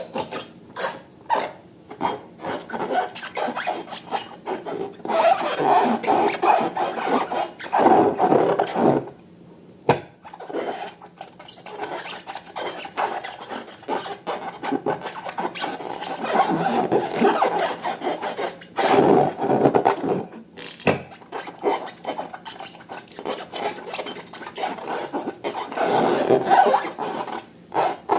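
Slime being squeezed, stretched and kneaded by hand, a sticky, crackly squishing with many small clicks. It swells in longer surges of handling a few times.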